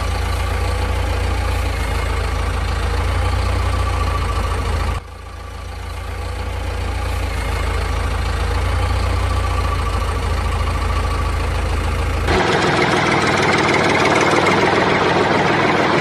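Engine idling with a deep, steady rumble. It breaks off sharply about five seconds in and swells back over a couple of seconds; near the end it switches to a brighter, noisier engine sound with less low rumble.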